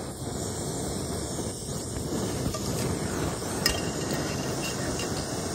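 BRS ultralight canister stove burning on a gas cartridge: the steady rushing hiss of the flame, starting as it is lit. About three and a half seconds in, a single light metal clink as the frying pan is set on the stove's supports.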